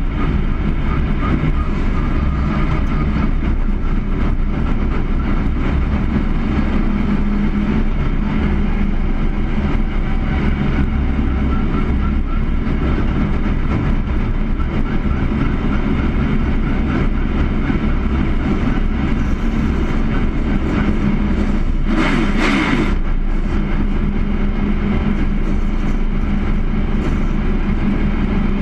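Stock-style race car's engine running at a steady note, heard from inside the cockpit. A brief burst of hissing noise comes about three-quarters of the way through.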